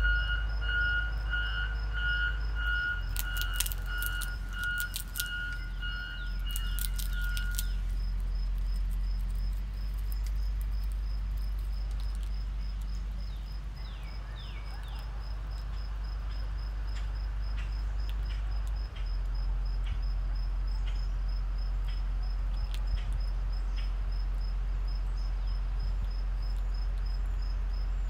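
A vehicle's reversing alarm beeps about twice a second over a steady low rumble, then stops about seven seconds in. A high insect chirping pulses in the background, and scattered sharp clicks come from a squirrel gnawing a peanut.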